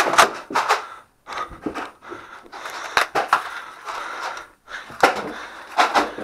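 Sharp clacks and thumps at uneven intervals, with rustling between them: the noise of players running and firing foam-dart blasters during a Nerf game.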